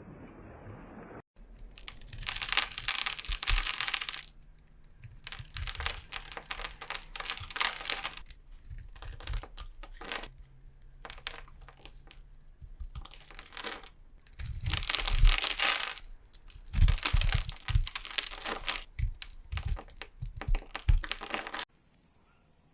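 Repeated bursts of crisp crunching and crinkling, each a second or two long, with soft low thumps under them, as something is crushed or cut by hand.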